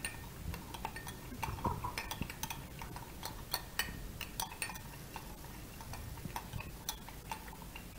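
A spoon stirring lime juice and soy sauce together, clinking against the side of the container in quick, irregular ticks.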